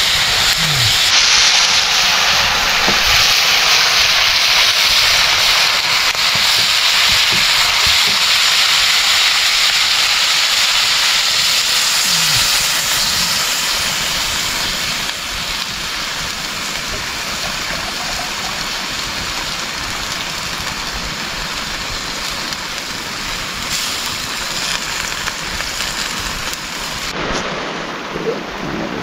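Heavy monsoon rain falling steadily as a dense hiss, easing a little about halfway through.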